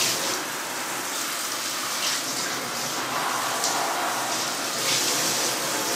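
Bathtub water running steadily, pouring over a cat's fur as he is wetted down for his bath.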